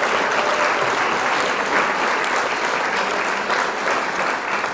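A crowd applauding: a dense patter of many hands clapping that slowly gets quieter.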